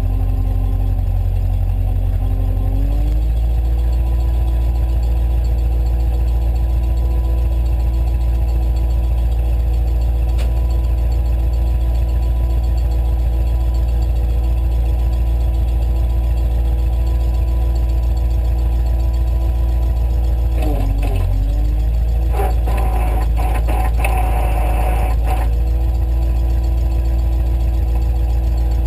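Diesel engine running steadily under load, its speed rising about three seconds in and holding there, with a brief dip around the twenty-second mark followed by a few seconds of rough, rattling noise over it.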